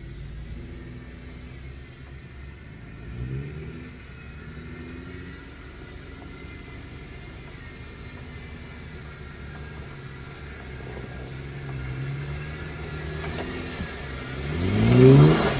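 Off-road vehicle's engine running at low speed on a rough trail, with a short rev about three seconds in and a louder rising rev near the end.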